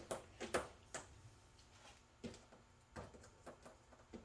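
A few faint, scattered clicks and light knocks from objects being handled, with quiet room tone between them.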